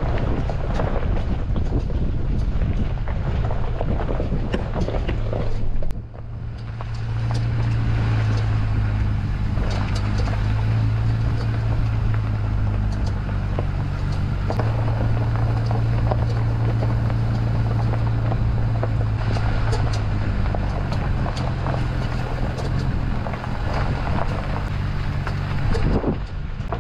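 A Jeep's engine running steadily at a low, even hum as the vehicle comes down a steep dirt trail, with scattered clicks and knocks over it. The sound breaks off briefly about six seconds in.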